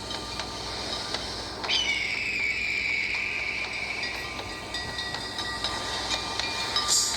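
A Samsung Galaxy S3 ringtone playing: thin electronic tones and clicks. About two seconds in, a tone drops in pitch and holds. A hissing burst comes near the end.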